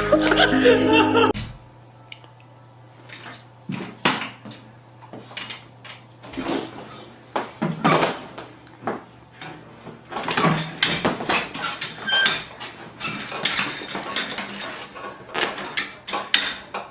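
Music cuts off about a second in, followed by irregular light clicks, knocks and clatters, as of small hard objects being knocked about.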